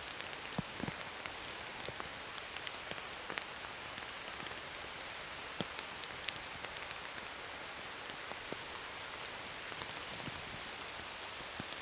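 Steady rain falling through the forest canopy and on wet ground, with scattered single drops ticking sharply close by.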